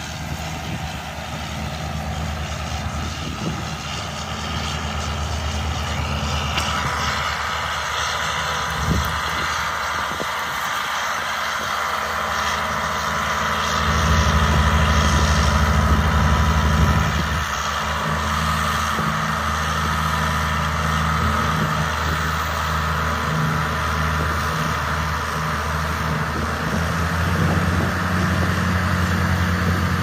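County four-wheel-drive tractor's diesel engine working under load while pulling a plough, a steady drone that gets louder for a few seconds around the middle.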